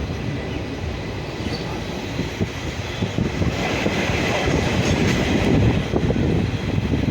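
Train running along the track: a steady rumble of wheels on rails with irregular knocks, growing louder around the middle.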